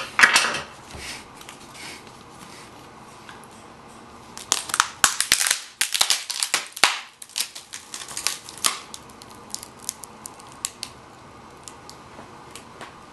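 Cardboard and plastic packaging being handled and packed up: a sharp rustle at the start, a dense run of crackling and crinkling in the middle, then scattered light clicks.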